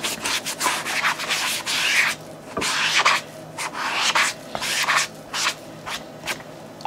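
Brisk rubbing and scraping strokes on a mesh Nike sneaker, in irregular runs with short pauses about two seconds in and near the end.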